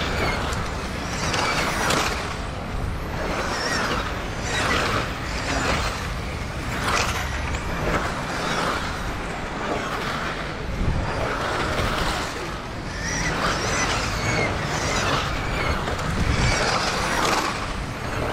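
Modified electric 1/10 touring-car RC cars with brushless motors racing past at speed, a string of quick passes about every second or two over a steady low rumble.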